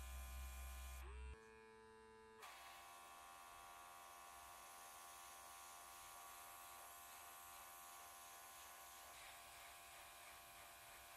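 Small airbrush compressor running with a faint, steady hum, its tone changing a little over a second in and again at about two and a half seconds.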